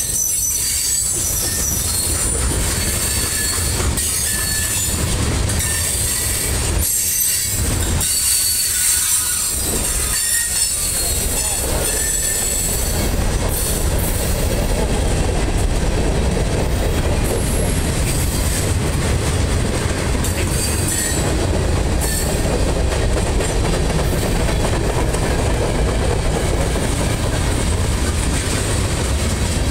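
Freight cars rolling past close by, their steel wheels running on the rails with a steady low rumble. A high-pitched wheel squeal rides over it, strongest in the first half and fading after that.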